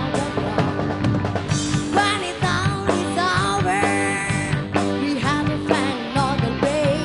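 Live rock band playing: a woman sings lead over electric bass and a drum kit.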